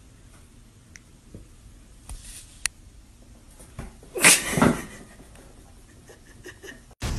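A cat's short, loud cry about four seconds in, with a few faint ticks and taps before it.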